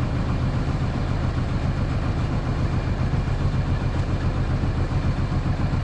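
Fishing boat's engine running steadily: a deep, even drone.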